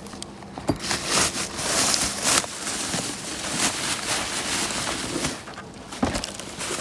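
Rustling and light knocks of packaging and small fittings being handled during unpacking, an uneven crinkly noise with scattered clicks.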